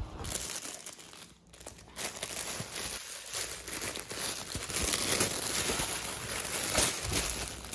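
Giant plush carrot dog toy crinkling as a dog mouths and chews it, a dense crackling that starts about two seconds in and keeps going.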